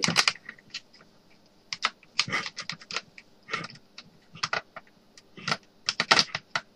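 Flat screwdriver clicking and scraping against the plastic fill plug of a Xerox toner cartridge as the plug is prised loose, in irregular clusters of sharp clicks.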